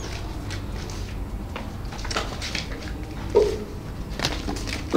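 Hand-labelling of paper flower-pot fireworks: scattered light taps and paper rustles as labels are handled and pressed onto the cones, with a brief duller thump about three and a half seconds in, over a steady low background hum.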